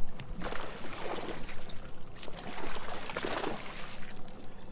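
A hooked fish thrashing at the surface beside the boat, splashing water in two spells, with a sharp click between them.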